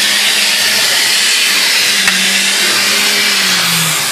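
Air blower at a Build-A-Bear grooming station, running with a loud, steady rush of air as it blows over a stuffed toy puppy.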